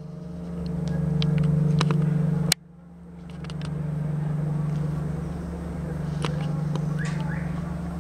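Large church bell's deep hum ringing on steadily with a slight beating waver. It breaks off abruptly about two and a half seconds in, then swells back. Faint clicks sound over it.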